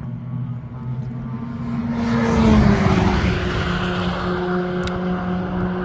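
Race car driving past at speed on the track: its engine note grows to a loudest point about two and a half seconds in and drops in pitch as it goes by, then holds a steady note as it carries on down the straight.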